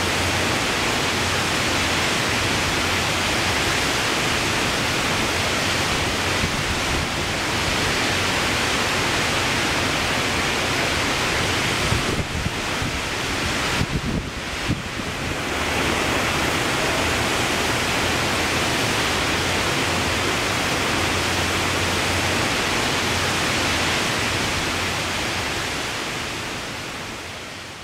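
Heavy rain falling steadily, a constant loud hiss. It dips briefly in the middle with a few knocks, then fades out at the end.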